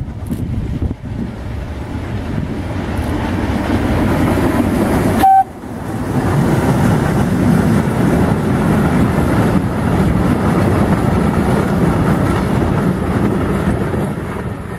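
Polish Ol49 steam locomotive and its train of vintage coaches passing close by: a heavy rumble of the engine and wheels on the rails that builds up, holds while the coaches go past, and starts to fade near the end. About five seconds in, a short sharp tone cuts in with a brief dropout.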